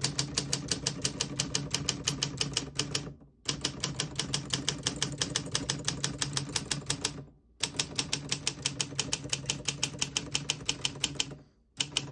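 Keys of a 1956 Olympia SM3 manual portable typewriter being typed in fast, even runs of about eight strokes a second, with short pauses twice.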